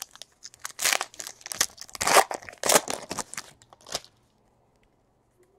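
Foil wrapper of a 2017 Panini Elite Extra Edition baseball card pack crinkling and tearing as it is ripped open and pulled off the cards, a run of crackles that stops about four seconds in.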